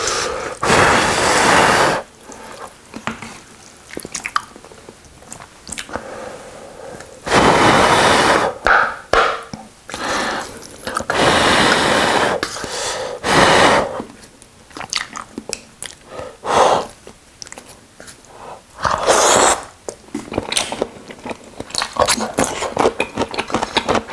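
Neoguri ramyun noodles slurped in several loud bursts of one to three seconds each, with chewing clicks in between.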